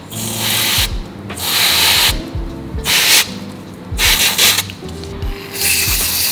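Aerosol spray can hissing in five short bursts onto a bicycle pedal spindle and into the pedal body.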